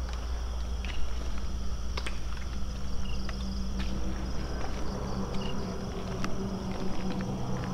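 Night insects chirring steadily in a continuous high-pitched drone, over a steady low rumble, with a few scattered light clicks.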